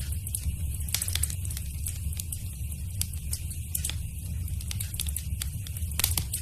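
Wood fire crackling in a fireplace: irregular sharp pops and snaps over a steady low rumble of the flames, with louder pops about a second in and near the end.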